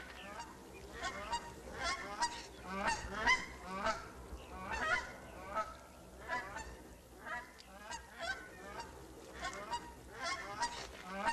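Bald eagles calling: a long series of short, high cries, about two a second.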